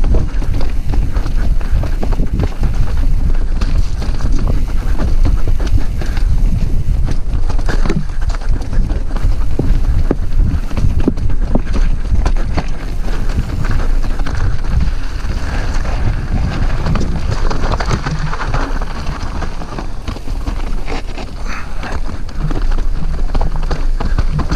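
Mountain bike descending a rocky singletrack: tyres, suspension and frame clatter over stones in a dense, irregular rattle, over a steady rush of wind on the camera microphone.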